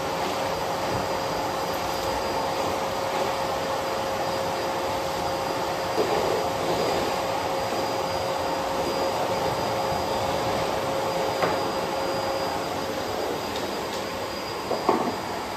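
Bosch BGS21X320 bagless canister vacuum cleaner running steadily with a constant hum, its floor nozzle being pushed back and forth over a hard floor. A few light knocks about six seconds in, near the middle and near the end.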